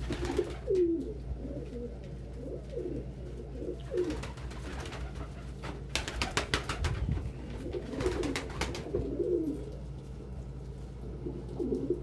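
Domestic pigeons cooing, several rolling low coos in a row, with bursts of wing flapping in the middle.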